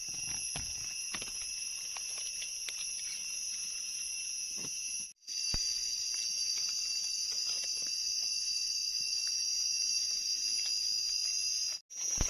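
Steady high-pitched drone of forest insects, with a few soft knocks and scrapes from a knife trimming a mushroom stem in the first couple of seconds. The drone cuts out briefly twice, at edits.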